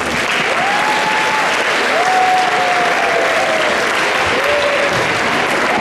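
Audience applauding, with a few long calls rising over the clapping.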